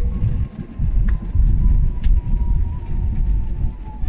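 Airliner cabin noise just after touchdown, with the spoilers deployed: a heavy, uneven rumble from rolling down the runway, over which a faint whine slowly falls in pitch. Two short sharp clicks come about one and two seconds in.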